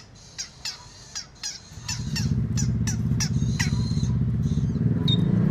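Long-tailed shrike (cendet) giving a rapid series of short calls, each sweeping sharply down in pitch, about three a second, which stop near the end. From about two seconds in, a loud low drone comes in and grows louder than the calls.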